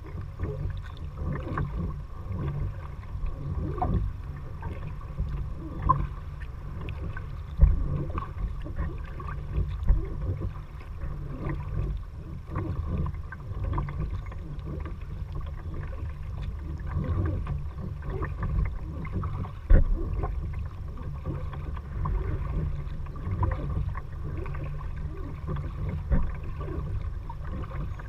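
Kayak paddling: the paddle dips and splashes with irregular water sounds over a steady low rumble, and there are three sharper splashes or knocks, about a third of the way in, around two-thirds of the way in, and near the end.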